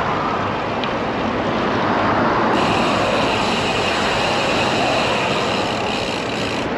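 Steady wind rushing over a bicycle-mounted camera's microphone while riding, mixed with road noise from traffic on the highway alongside. A brighter hiss comes in about two and a half seconds in and cuts off near the end.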